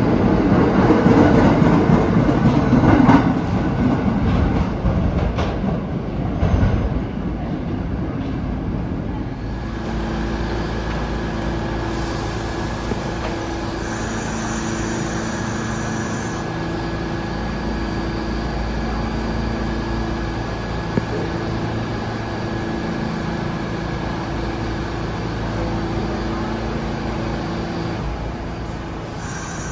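New York City subway train rolling into the station and slowing to a stop, its rumble fading over the first several seconds. It then stands at the platform with a steady hum, and a couple of tones in the hum cut in and out.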